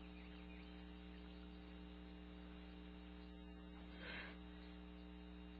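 Near silence with a steady electrical mains hum, and a brief faint noise about four seconds in.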